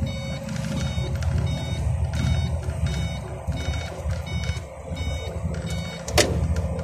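Iveco truck's diesel engine running steadily, heard from inside the cab while driving, with a short high beep repeating many times over it. A sharp loud click comes about six seconds in.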